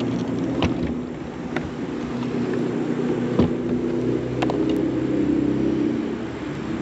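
Boat motor humming steadily, with a few sharp clicks and knocks from gear on the deck.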